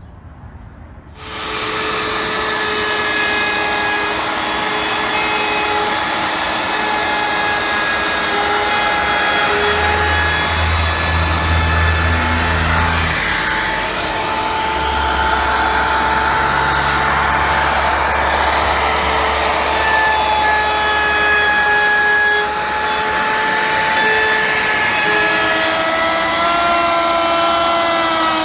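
Handheld wood router switching on about a second in and cutting MDF, running at a steady high whine. A shop vacuum runs with it, drawing dust through a hose on the router.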